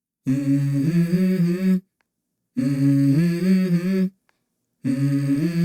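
Background music: a wordless hummed vocal line in three short phrases, each stepping up in pitch partway through, starting about a quarter second in.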